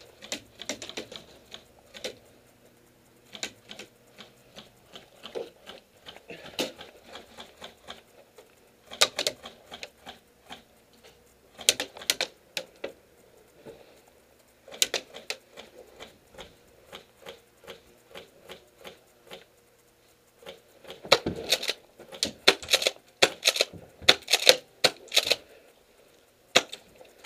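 Airsoft gunfire: irregular sharp clicks and snaps of shots and BB hits, scattered at first and coming thick and fast for a few seconds about three-quarters of the way through.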